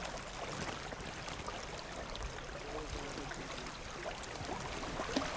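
Creek water running steadily, getting a little louder near the end.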